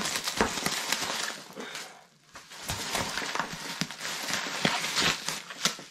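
Packing peanuts and plastic bubble wrap rustling and crinkling as hands dig through a cardboard box, with a brief lull about two seconds in.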